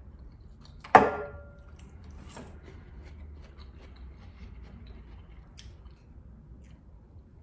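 A metal fork clinks once against a ceramic bowl about a second in, with a short ring. Then quiet chewing and small wet mouth clicks of someone eating pasta.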